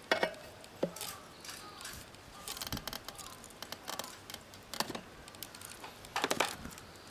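Steel tire levers clinking, knocking and scraping against the spoked rear wheel rim of a Suzuki Djebel 250XC motorcycle as the tire bead is pried over it, in irregular clicks and knocks.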